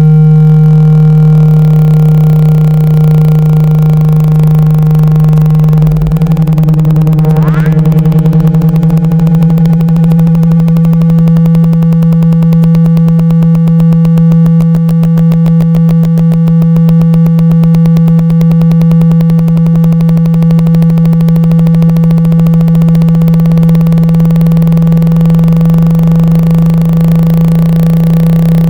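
Synthesized speaker test signal: a loud, steady low tone with fainter higher tones above it. About six seconds in it turns into a rapid, even pulsing, and a brief rising sweep follows soon after.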